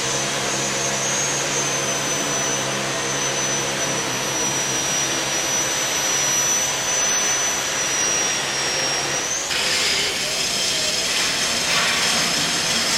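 Handheld angle grinder with a polishing disc working the blades of a Francis turbine runner: a steady high whine over a motor hum, the pitch sagging slightly under load. About nine and a half seconds in the whine ends and a different, hissier grinding noise takes over.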